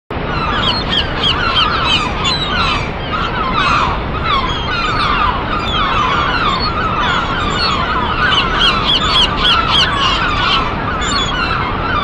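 Waterfall rushing steadily, with many birds calling in quick, repeated chirps over it.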